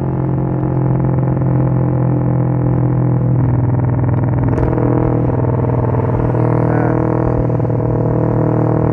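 Motorcycle engine held at a fixed high rev by its ECU's launch-control limiter, a steady, unchanging drone that turns rougher and stuttering about three seconds in.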